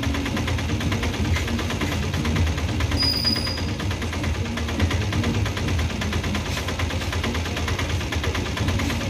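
Covered BCN goods wagons rolling slowly past, their wheels rattling and clattering steadily over the rails and yard points above a low rumble. There is a brief high squeak about three seconds in.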